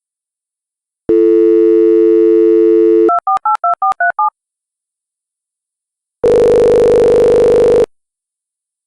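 Telephone line sounds: a steady dial tone for about two seconds, then a quick run of about seven keypad dialing beeps. A few seconds later comes a single buzzy ringing tone lasting about a second and a half.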